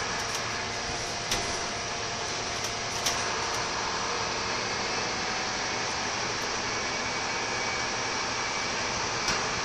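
Scania K230UB Alexander Dennis Enviro 300 single-deck bus under way, heard from inside the saloon: a steady running noise of engine and road, with a few sharp knocks or rattles about a second in, around three seconds in and near the end.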